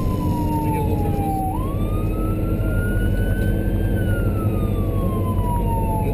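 Emergency vehicle's siren wailing while responding to a fire call. The pitch climbs quickly, then falls slowly, about once every five seconds, over the steady low rumble of the vehicle driving.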